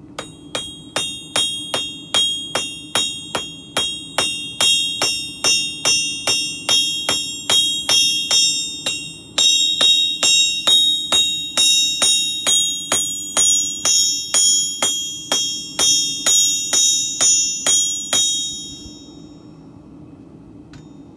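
Hammer blows on a sword blade over an anvil, struck at an even pace of about two to three a second, each blow ringing like a bell; the hammering breaks off briefly about halfway and stops a few seconds before the end.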